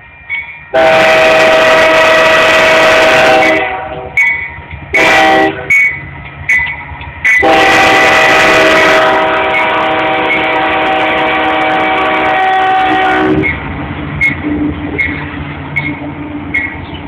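Union Pacific AC44CW locomotive's air horn sounding a chord for the grade crossing: a long blast, a short one, then a long one held about six seconds as the locomotive passes close by. After the horn stops, the diesel locomotives rumble past while a bell dings about once a second.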